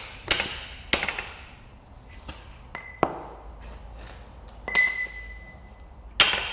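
Hammer blows on metal driving a worn rubber bush out of a leaf spring eye: five sharp strikes at an uneven pace, two of them leaving a high ringing ping.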